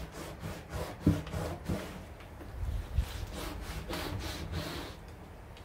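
Scrub pad rubbing back and forth on a plastic patio tabletop in quick, uneven strokes, with a couple of soft knocks about a second and three seconds in.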